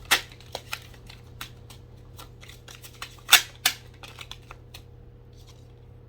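Oracle cards being handled and drawn from the deck: a run of irregular light clicks and card snaps, with the loudest ones just after the start and about three seconds in.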